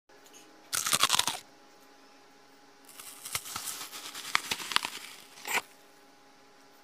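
Close-miked tearing and crackling of fruit being pulled apart and peeled by hand, in two bursts: a short one about a second in and a longer one in the second half, ending in a sharp crack.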